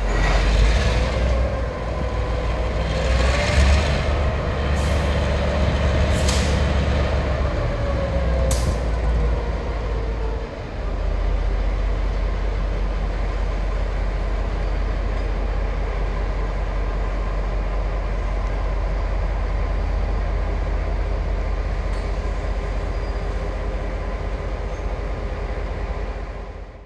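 Diesel locomotive running with a steady deep rumble as it moves slowly, and a pitched whine that rises and falls over the first ten seconds. A few short sharp sounds come between about five and nine seconds in.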